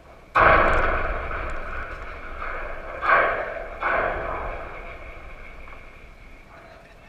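A sudden loud knock close to the microphone, followed by a rattling ring that slowly fades, with two more knocks about three and four seconds in.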